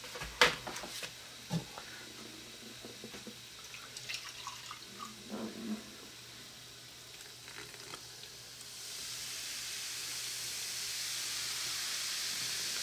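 A few light clicks and knocks of plastic and glass being handled, then vinegar poured into the baking-soda-filled toy volcano: a steady fizzing hiss sets in about nine seconds in as the mixture foams up and over.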